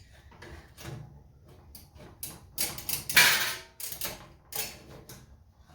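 A card vending machine's mechanism being worked by hand: a run of clicks and knocks, with a louder sliding rattle a little after three seconds in.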